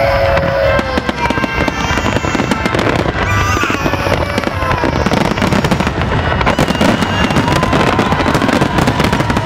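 Dense fireworks finale: rapid, overlapping bangs and crackling from many shells bursting at once, with a few thin whistling tones over it.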